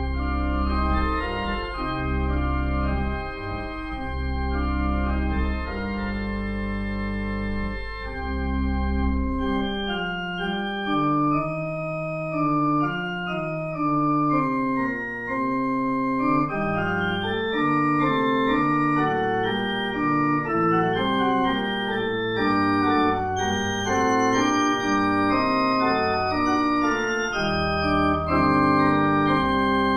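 Organ playing the postlude after the dismissal: held chords over deep bass notes for about the first nine seconds, then a busier passage of quicker moving notes and chords.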